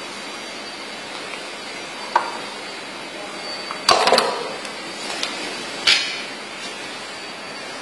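A handheld date stamp clacking: a single knock about two seconds in, a quick cluster of clacks around four seconds, and another near six seconds, over a steady hiss.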